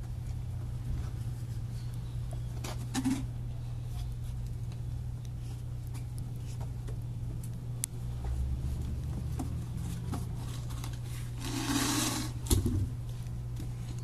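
Steady low hum with scattered small clicks and taps. Near the end there is a second of rustling and scraping, then one sharp knock, as a person gets down onto the pavement beside the pickup.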